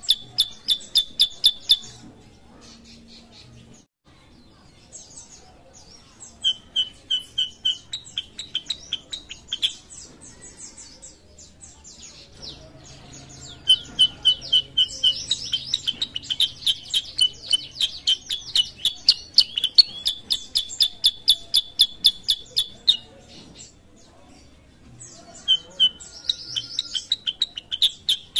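A kutilang sutra bulbul singing in bursts of rapid, evenly repeated chirps, each run lasting a few seconds, with short pauses between runs.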